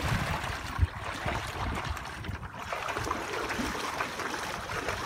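Water churning and splashing from a small boat's side paddle wheel as it drives the boat along, over a steady low rumble of wind on the microphone. A brief low thump comes just under a second in.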